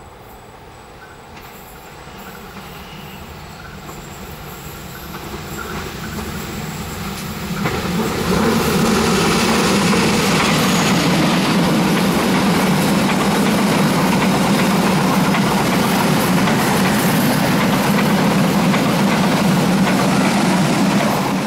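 Passenger train approaching, its diesel-electric locomotive's engine growing steadily louder; then, from about eight seconds in, the coaches rolling past close by with a loud, steady rumble and clatter of wheels on the rails, which cuts off suddenly at the end.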